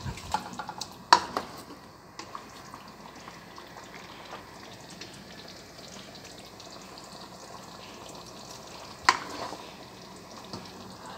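Chicken curry simmering in a pan with a low steady sizzle, and a spoon clinking against the pan, sharply about a second in and again about nine seconds in.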